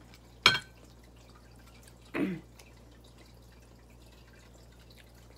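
Eating sounds from fried tilapia picked off a plate by hand: a sharp click about half a second in, then a brief mouth sound about two seconds in.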